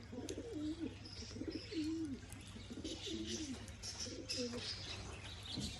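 Racing pigeons cooing in the loft: a run of low, gliding coos about once a second, with faint high chirps above them.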